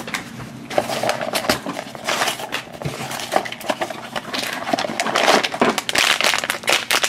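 A small cardboard blind box being handled and opened by hand, then a foil blind bag crinkling as it is handled, loudest near the end.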